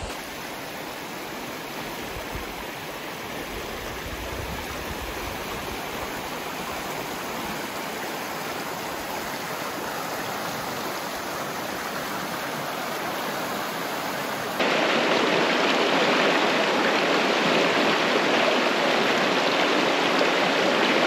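Creek water rushing over rocks through a shallow riffle, a steady rush that grows slowly louder and then suddenly louder about two-thirds of the way through.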